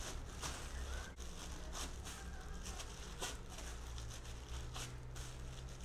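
Plastic bag crinkling and rustling as a bag-covered hand kneads a warm, cooked salgado dough against a glass tabletop, in repeated strokes roughly every two-thirds of a second.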